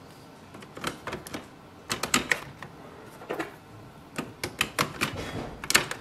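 Ink cartridges being pushed down into the plastic cartridge holder of an Epson WorkForce Pro WF-3820 inkjet printer: a string of irregular plastic clicks and taps as each cartridge is seated.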